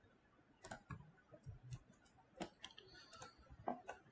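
Faint, scattered clicks of a computer keyboard and mouse: a handful of single keystrokes and clicks at irregular intervals.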